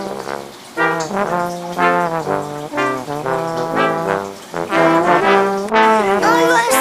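Music with brass instruments playing a melody of separate notes over a held low note.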